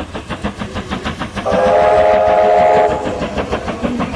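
Steam locomotive running in with a steady rhythmic chuffing, and one loud steam-whistle blast of about a second and a half in the middle.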